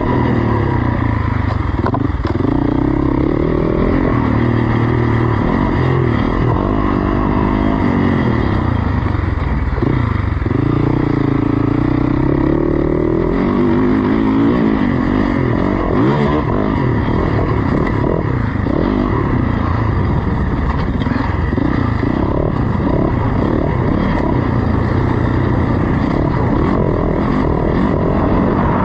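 Off-road motorcycle engine revving hard, its pitch climbing and dropping again and again with throttle and gear changes as the bike is ridden through an enduro test.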